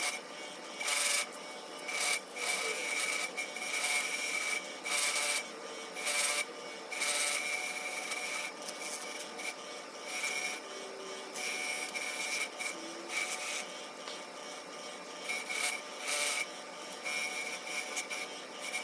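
Power tool with a wire wheel scrubbing a small cast metal bench vise clean. A steady high motor whine runs under irregular loud scratchy bursts, about one a second, as the wheel is pressed against the metal.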